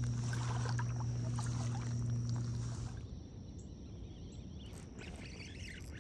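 A steady low hum that cuts off abruptly about three seconds in, leaving faint lapping of shallow water.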